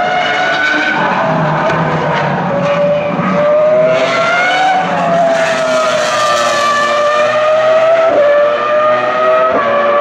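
Toro Rosso STR1 Formula One car's Cosworth V10 running at high revs, a shrill multi-layered note whose pitch climbs and then drops about halfway through, with quick breaks near the end as it shifts gear.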